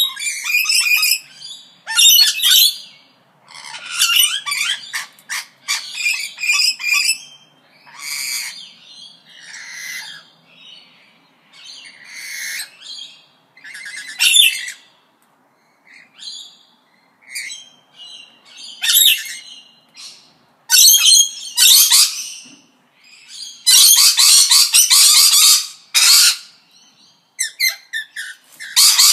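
Parrots calling in a string of short, loud squawks and chirps, irregular and varied, with a longer, noisier squawking stretch near the end.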